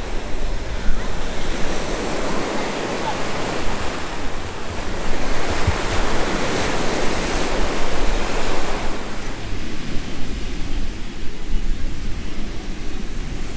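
Ocean surf washing up on a sandy beach in a steady hiss, swelling about five seconds in and easing off after about nine, with wind rumbling on the microphone.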